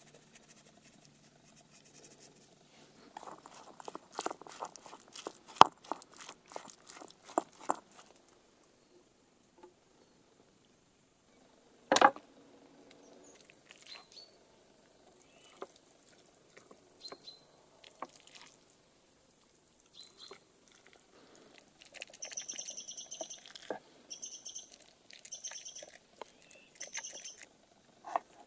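Onion-and-spice marinade being mixed in a ceramic bowl: a quick run of clicks and clinks for several seconds, then one sharp knock. Near the end a bird calls four times, short high calls about a second apart.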